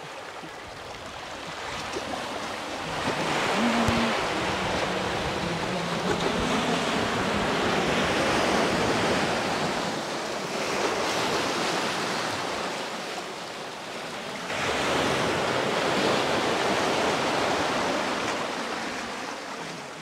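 Sea surf at high tide washing up the beach, the rush of water swelling and easing in three long surges.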